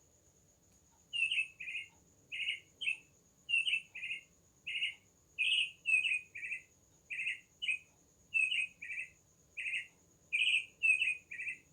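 Bird chirping: a run of short, separate chirps, often in pairs, about two a second, starting about a second in.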